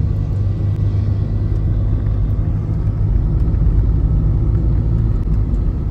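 Steady low rumble of a car on the move: road and engine noise while driving.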